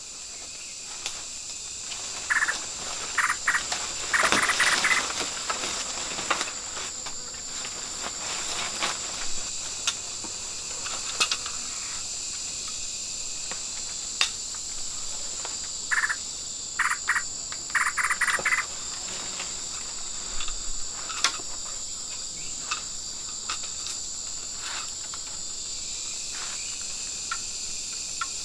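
Insects shrilling steadily at a high pitch, with a few short clicks and two brief clusters of rapid chirps, one soon after the start and one past the middle.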